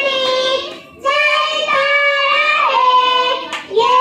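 A group of young children singing a patriotic national song in unison, holding long notes, with a short break for breath about a second in.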